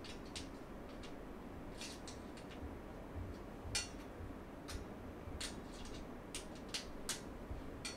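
Faint, irregular light clicks and ticks, a dozen or more, as bolts are tightened into the dresser's steel frame. The loudest click comes a little before halfway.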